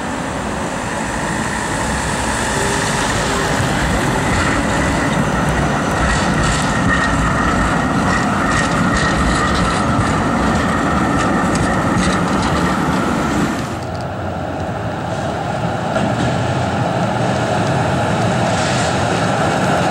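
Oslo SL95 articulated tram passing close as it rounds a curve, its wheels giving a high, steady squeal over the running noise. About two-thirds through, the sound cuts abruptly to another tram approaching on straight track with a lower rumble.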